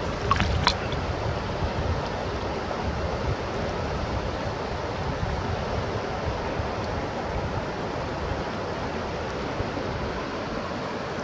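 Steady rush of shallow river water running over stones, with a couple of small sharp ticks about half a second in.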